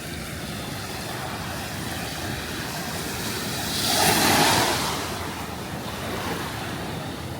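Sea waves washing onto the shore, with wind on the microphone; the noise swells to a louder surge about four seconds in and then fades back.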